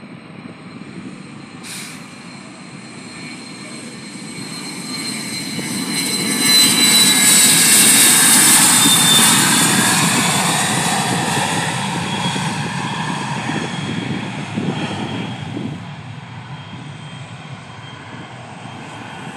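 Jet aircraft on its takeoff roll passing along the runway. Engine noise with a high turbine whine builds over several seconds, peaks with the whine dropping slightly in pitch as it passes, then fades as the jet climbs away. A brief click near the start.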